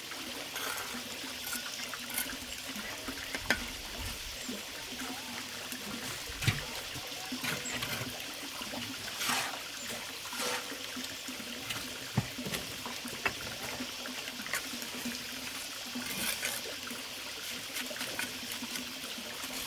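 Water trickling steadily, with scattered small knocks and clicks.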